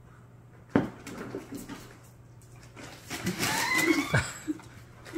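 Paper fast-food bag rustling and crinkling as a dog noses into it for fries, with a sharp knock about a second in. The crackling is loudest in the second half, with a short rising squeak mixed in.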